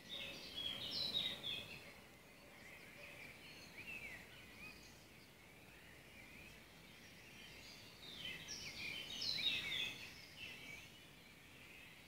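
Songbird singing its early-morning song over a steady background hiss. There are two bursts of quick, high, varied notes, one at the start and one about eight seconds in, with softer calls between them.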